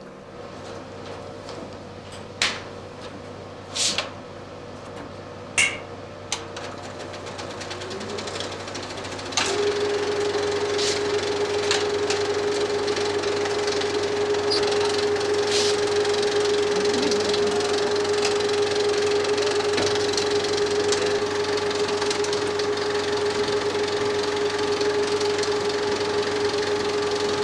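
35 mm cinema film projector being set going: a few sharp clicks in the first seven seconds, then the machine spins up and, about nine seconds in, settles into steady running with a constant hum, running film through at 24 frames a second.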